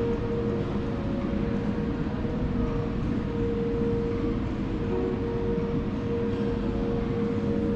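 Steady low rumble and hum of a building's air-conditioning, with a constant tone running through it.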